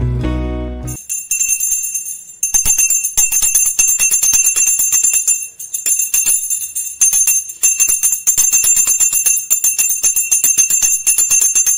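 A hand bell of the kind used in Hindu worship, rung rapidly and without pause through an aarti, many strikes a second with a steady high ring. In the first second, guitar music cuts off before the bell starts.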